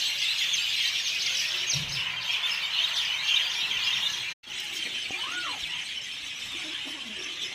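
Dense chorus of many small birds chirping and twittering at once, a flock gathered in a tree. The sound cuts out for a moment a little past the middle.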